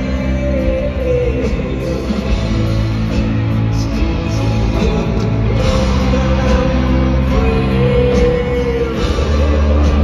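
Live rock band playing loud through a concert sound system, heard from within the audience: a heavy, steady bass and drums under a sung lead vocal.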